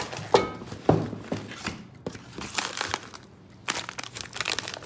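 Plastic and foil grocery packaging crinkling and rustling as items are handled in a shopping bag, with a couple of sharp knocks in the first second and a longer rustle near the end.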